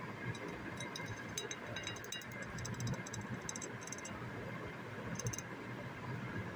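Two cockatiels pecking and nibbling at tomato wedges on a plate: a run of quick, faint, high clicks in the first five seconds, over a low steady rumble.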